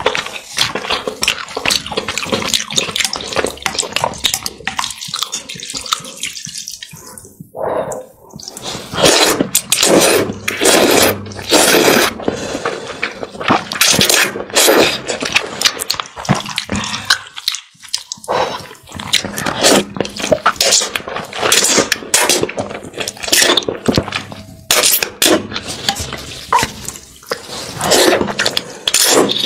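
Close-miked eating of noodles in a spicy chili broth: wet slurps and mouth sounds in quick repeated bursts, with short pauses about seven and seventeen seconds in.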